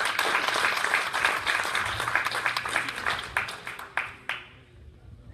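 Congregation applauding, many hands clapping together, dying away about four seconds in.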